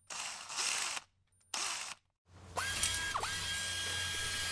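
Short bursts of clicking, rattling handling noise from hand work on a small RC crawler's chassis and parts, each cut off abruptly. About halfway through, a steady sound with a held high tone begins.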